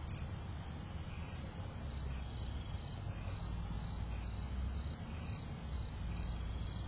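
Night insects chirping outdoors, short high chirps repeating about twice a second, over a steady low rumble.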